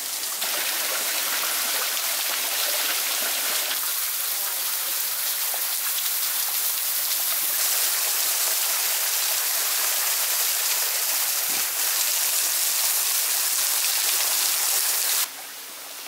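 Small waterfall spilling down a rock face into a pool: a steady hiss and patter of falling water that jumps in level a few times. Near the end it cuts off sharply to a quieter background with a faint low hum.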